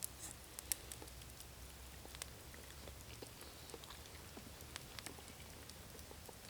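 Faint campfire crackling: scattered sharp pops and snaps at irregular intervals over a low background hiss.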